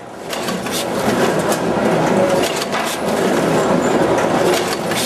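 C-Pack VAC 929 net-bagging machine running as it fills onions into mesh bags: a steady mechanical din with irregular clacks and rattles, fading in over the first second.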